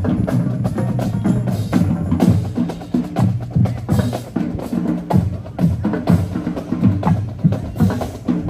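High school marching band drumline playing: snare and bass drums beating out a dense, steady march rhythm.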